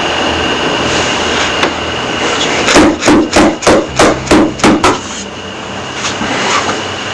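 Hard, rapid knocking on a door: about eight knocks in quick succession, roughly three a second, starting a little under three seconds in, over a steady background hum.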